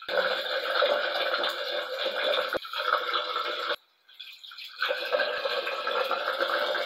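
Water running from a bathroom sink tap into the basin, splashing as hands are washed under it: a steady rush that cuts off suddenly about four seconds in and starts again a second later.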